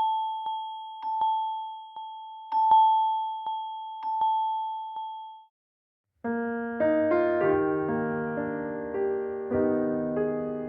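iPhone ringtones: one high chime note struck over and over in an uneven rhythm, each strike ringing out, stopping about five and a half seconds in. After a short silence the next ringtone starts with soft piano chords.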